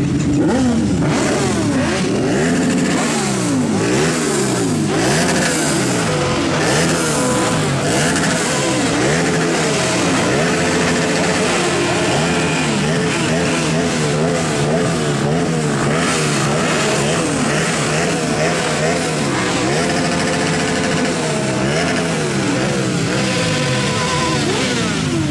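Many motorcycle engines running together and being revved again and again, their pitches rising and falling over one another.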